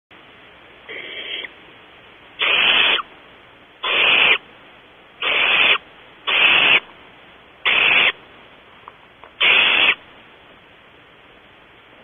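Barn owls in the nest box giving harsh, raspy hissing calls, the food-begging hisses of owlets as the mother delivers prey. One fainter call is followed by six loud ones, each about half a second long, coming roughly every second and a half.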